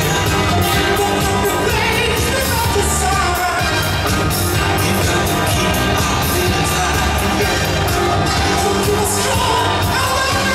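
Loud music with a steady beat and a singing voice.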